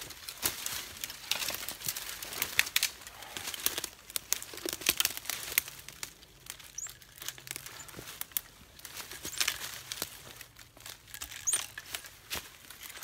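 Leaves and brush rustling and crackling as small branches are cut with loppers, with irregular sharp snaps and clicks of twigs, busiest in the first half.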